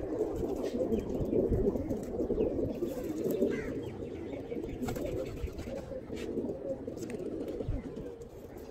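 A flock of domestic pigeons cooing together, many low coos overlapping into a continuous chorus.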